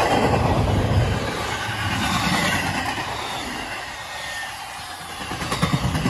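Double-stack intermodal freight cars rolling past at trackside, steel wheels rumbling and clattering on the rails. The rumble eases about four seconds in, then picks up with sharper clacks near the end as the next wheel sets pass.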